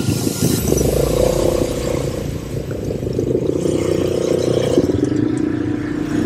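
ATV engines running as quad bikes ford a shallow river, one revving up about a second in and easing off just before five seconds, with water splashing under the tyres.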